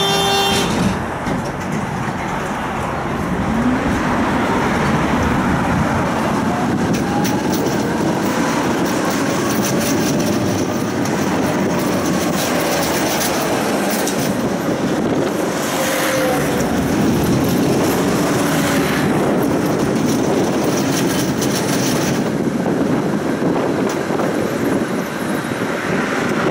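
Tram running on its rails, heard from inside the car: a steady rumble of wheels and motors with clatter over the track, and faint wheel squeals rising and falling in the middle.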